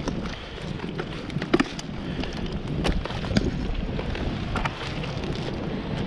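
Wind buffeting the microphone with a steady low rumble, over scattered short clicks and slaps as fish are handled in a plastic bucket, two of them louder about a second and a half in and again past three seconds.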